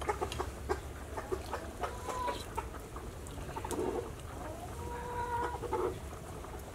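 Chickens clucking, with two longer held calls about two seconds in and again near the end, over scattered small clicks from a spoon in a soup bowl.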